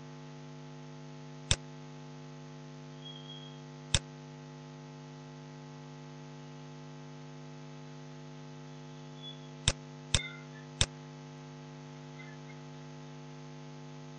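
Steady electrical mains hum on the recording, broken by five sharp clicks. Two clicks come a couple of seconds apart early on, and three come within about a second well past the middle.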